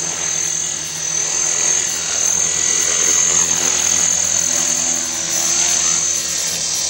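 A 450-size radio-controlled model helicopter in flight: a steady high-pitched whine from its motor and gearing over the hum of the spinning rotor, the pitch wavering slightly as it flies.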